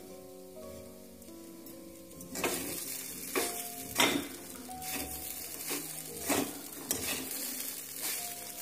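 A metal spatula stirring and scraping flattened rice (poha) with vegetables in a metal kadai as it sizzles over the heat; from about two seconds in come repeated scrapes and knocks against the pan. Soft background music plays at first.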